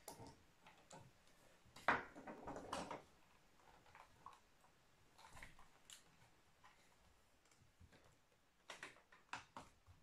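Light clicks and knocks of hands working the plastic stand and back cover of an Acer C24-760 all-in-one PC, with a louder cluster about two seconds in and another near the end.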